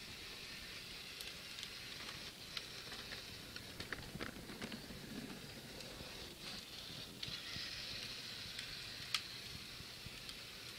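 Power Wheels Jeep Wrangler ride-on toy rolling over pavement: a steady gritty hiss from its hard plastic wheels, with scattered small clicks and crackles.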